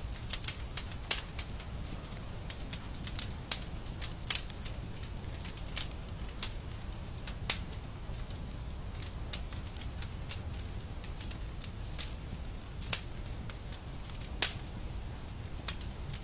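Wood fire crackling in a fireplace: irregular sharp pops and snaps over a steady low rumble, with one louder pop near the end.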